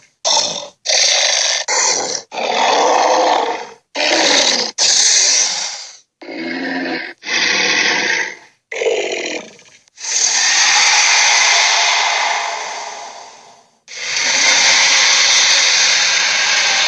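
Gorilla sound effects: a run of short growls and grunts with abrupt silences between them, then two long, noisy calls of about four seconds each.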